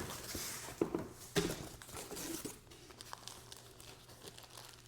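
Packing material in an opened shipping box being handled and pulled about: crinkling and rustling with a few sharper scrapes, busiest in the first two and a half seconds, then softer.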